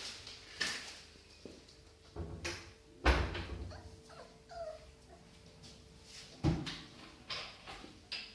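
Bichon Frise puppies playing: scattered knocks and scuffles, the loudest about three seconds in, with a few faint short whimpers around the middle.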